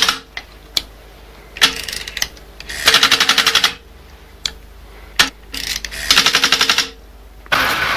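A 1960s Strowger selector stepping as a number is dialled. Its electromagnets drive the arm up and across the contact bank in two quick runs of clicks, each under a second long, with single clacks between.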